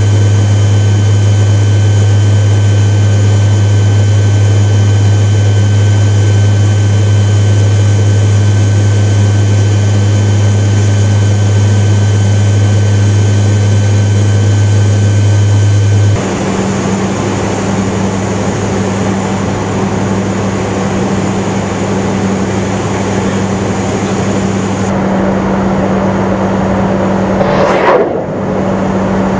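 Steady drone of a KC-130J's turboprop engines and propellers heard inside the aircraft, with a strong low hum. The tone changes abruptly about 16 seconds in, and near the end a brief loud whoosh sweeps up and back down.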